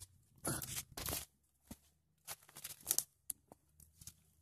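Footsteps crunching on the dry leaves and stones of a forest trail, irregular crunches with short pauses between them.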